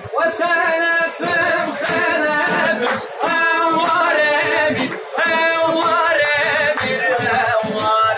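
A man singing in loud sung phrases with short breaks between them, over a steady rhythm of strummed acoustic guitar.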